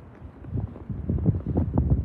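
Strong snowstorm wind buffeting the microphone in irregular gusts, low and rumbling; it eases briefly at the start and builds again from about half a second in.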